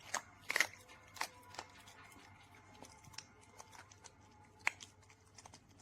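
Faint scattered clicks and rustling, loudest in the first second and once more near the end, over a low steady hum.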